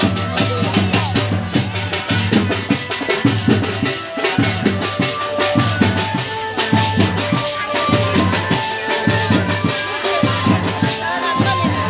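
Music with a steady drum-kit beat and held melody notes.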